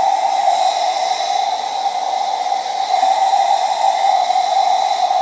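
Compact Infinity hand-held hair dryer running steadily on its second, higher speed setting: a loud, even rush of air with a thin, steady high whine from the motor.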